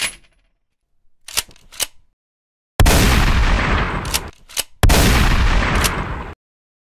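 Shotgun sound effects: two sharp clicks of a pump action being racked, then a loud shotgun blast about a second and a half long, two more racking clicks, and a second blast that cuts off suddenly.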